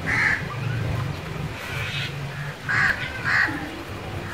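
Crows cawing: one caw at the start and two close together near the end, over a low steady hum.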